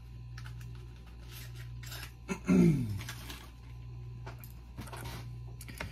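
Small clicks and rustles of hands handling a small poking tool and Anderson Powerpole connector parts. About two and a half seconds in there is a short sound falling in pitch, the loudest thing here. A steady low hum runs underneath.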